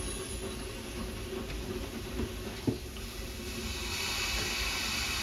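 Steam locomotive Isle of Man Railway No. 13, a Beyer Peacock 2-4-0 tank engine, hissing steam. The hiss grows louder about three and a half seconds in, with a single sharp clank shortly before.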